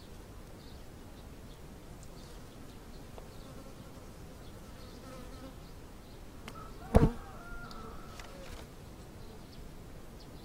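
Honeybees buzzing around an opened hive while a comb frame is lifted out, with faint wavering buzz tones. A single sharp knock about seven seconds in is the loudest sound.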